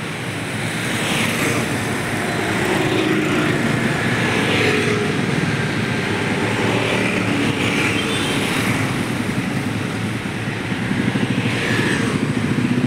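Steady road traffic, with cars passing one after another and their tyre and engine noise swelling up and fading every few seconds.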